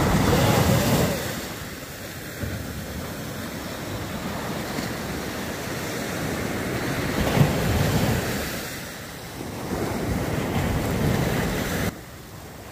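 Small waves breaking and washing up a sandy beach, with wind on the microphone. The surf swells loudest at the start and again about seven to eight seconds in, and the sound drops suddenly near the end.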